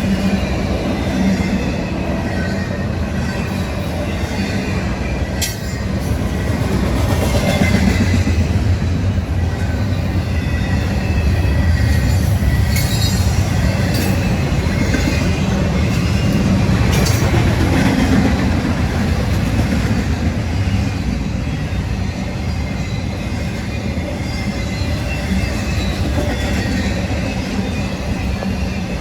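Freight cars rolling past on the rails in a steady rumble, with wheels clacking over rail joints and an occasional light wheel squeal.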